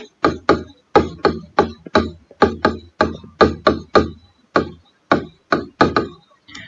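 Marker writing on a whiteboard: a quick, irregular run of short sharp taps and strokes, about three or four a second, as the words are written out.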